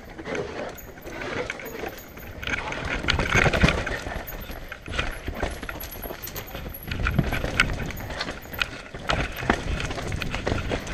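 Mountain bike descending a rough forest trail: tyres rumbling and knocking over rocks, roots and wooden boardwalk slats, with the bike's chain and frame rattling in quick irregular clatters.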